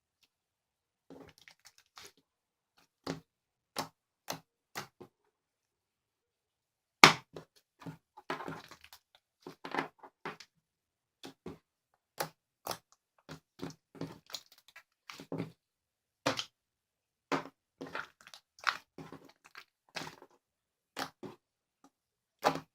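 Slime being squished and pressed by hand: short, irregular squelches and pops, one or two a second, the loudest about seven seconds in.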